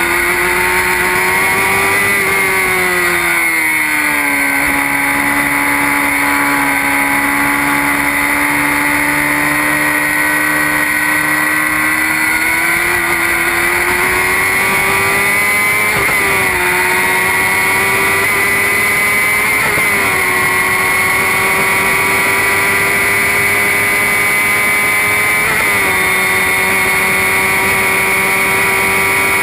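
Formula Predator single-seater race car engine heard from onboard, running hard at speed. The pitch drops about three seconds in, then climbs slowly and holds, with three brief dips in pitch in the second half.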